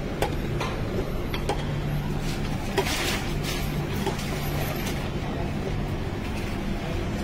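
Steady background traffic noise with a low, even hum, and a few light clicks and taps.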